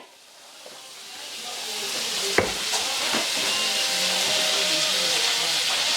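Butter sizzling in a hot frying pan used for cooking pancakes: a steady frying hiss that builds over the first second or two and then holds. A single sharp click comes about two and a half seconds in.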